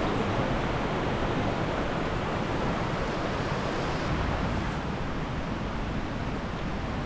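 Steady rushing of the River Tees, running high and fast.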